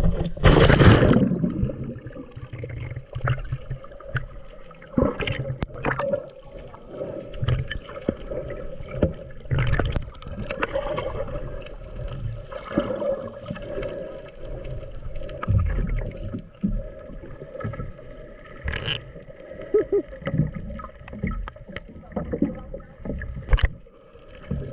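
Water sloshing and gurgling close to the microphone while snorkeling, with irregular knocks and a steady hum underneath.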